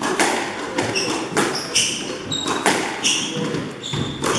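Squash rally: a run of sharp smacks as the ball is struck by rackets and hits the court walls, with short squeaks from shoes on the wooden court floor between the hits.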